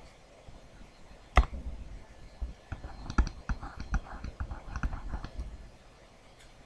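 Stylus pen clicking and tapping on a tablet PC screen during handwriting. There is one sharp click about a second and a half in, then a quick run of light clicks for a couple of seconds.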